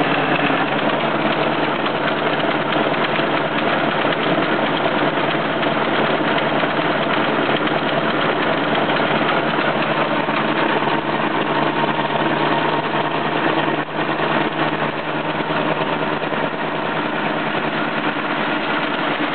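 Old Biernatzki milling machine taking a 2 mm-deep cut in steel with a carbide-insert face mill, running steadily under power feed. Two gears in its drive make an ugly gear noise throughout the cut.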